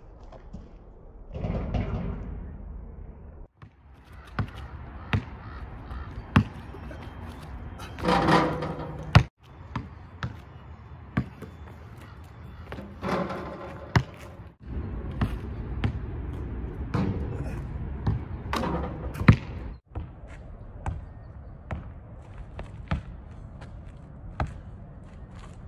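A basketball being dribbled on an asphalt court: a string of sharp bounces, roughly one every half second to a second, with short pauses and a few harder hits.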